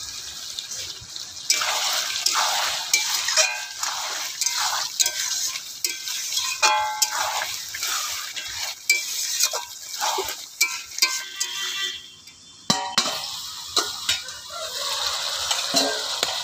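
A metal spatula stirs and scrapes chicken and potatoes frying in thick masala in a metal kadai, with frequent clicks and a few ringing clanks against the pan over a steady sizzle. The stirring stops for a moment about twelve seconds in, and the sizzle carries on alone near the end.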